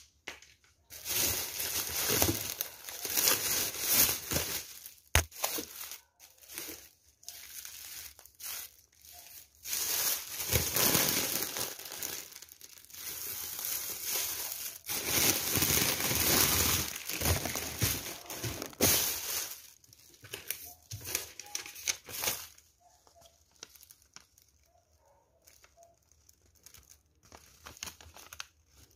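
A thin plastic grocery bag crinkling and rustling as it is pulled open and the packages inside are moved about, in loud, irregular bursts for about twenty seconds. Only faint handling sounds follow near the end.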